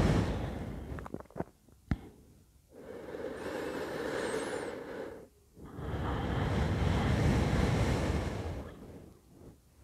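A woman's slow, deep breathing while holding a yoga stretch, each breath a few seconds long, picked up close by a clip-on microphone. A couple of small clicks sound about two seconds in.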